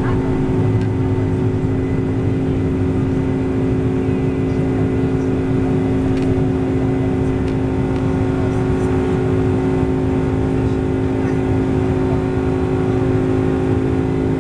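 Boeing 747-400's General Electric CF6 turbofan engines running at takeoff thrust, heard inside the cabin: a loud, steady rumble with a few fixed droning tones as the jet lifts off the runway and climbs.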